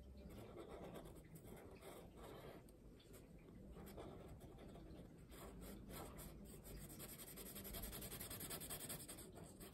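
Black Sharpie marker colouring on paper: faint scratching of the felt tip, a little louder near the end.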